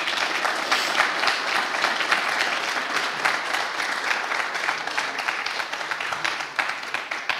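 Audience applauding, a dense patter of many hands clapping that starts to die down near the end.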